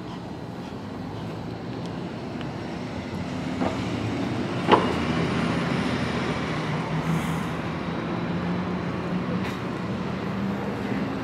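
Street traffic with a vehicle engine running, its hum growing louder over the first few seconds, and a sharp click near the middle.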